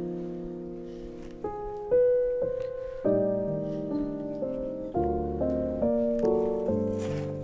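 Background piano music: soft chords and single notes, each struck and then fading.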